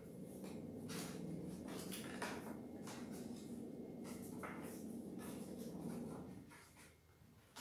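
Paper rustling and crinkling as fingers handle and adjust a paper bag's paper-strip handles, with scattered crisp crackles. It stops about six and a half seconds in.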